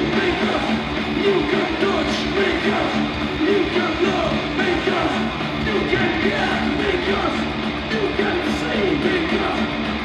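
Metal band playing live: distorted electric guitars, bass and drums in a fast speed/thrash metal song, heard from the crowd.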